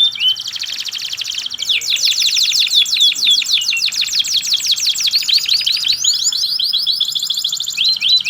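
Domestic canary singing a loud, continuous song of rapid rolling trills: runs of fast repeated sweeping notes, about ten a second, switching to a new trill type every second or two.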